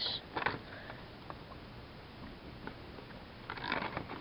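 Clear plastic clamshell package being opened by hand: a few faint scattered clicks and crackles, then a short cluster of plastic crackling about three and a half seconds in.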